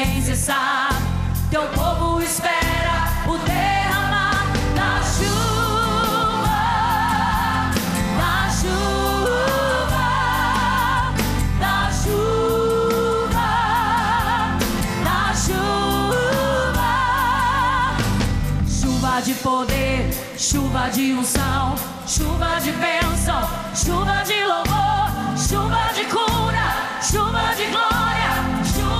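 A woman singing a gospel song live into a microphone over instrumental backing. She sings long held notes with a wide vibrato.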